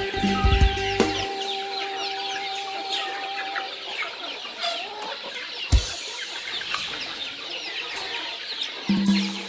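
A flock of young chickens cheeping and clucking, with many short, high, falling chirps overlapping. A single dull thump just before the six-second mark.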